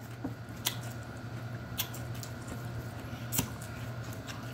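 Close-up wet chewing of crisp raw cucumber and celery with ranch dip, with a few sharp crunches about a second apart over a steady low hum.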